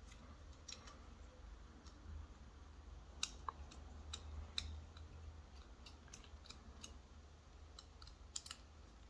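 Faint, irregular small clicks and ticks of a precision screwdriver working a tiny screw out of a Samsung Galaxy SmartTag2's circuit board, over a low steady hum.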